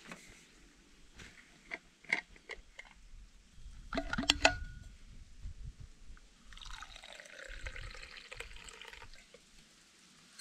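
Stainless steel vacuum flask being opened, with a few clicks and a cluster of sharp knocks and a short metallic ring about four seconds in. Then a drink pours from the flask into its metal cup for about two and a half seconds.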